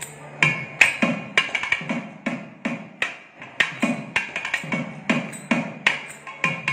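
Thavil drumming in a thani avarthanam solo: crisp, cracking strokes alternating with deeper low strokes in an irregular rhythm, broken by quick flurries of rapid strokes.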